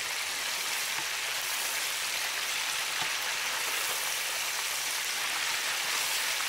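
Cornmeal-coated ocean perch fillets deep-frying in hot oil in a large pot: a steady sizzle of the bubbling oil.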